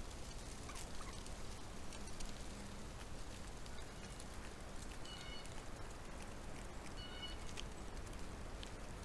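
Wild turkeys giving two short, high calls, one about five seconds in and another about seven seconds in, over scattered faint ticks.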